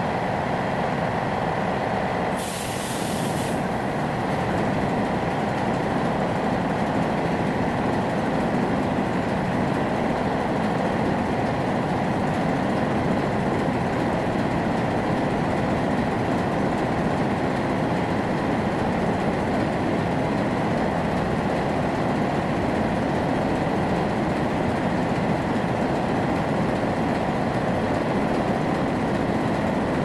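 A tanker's in-line multi-cylinder diesel engine running steadily in the engine room. A short hiss comes about two and a half seconds in.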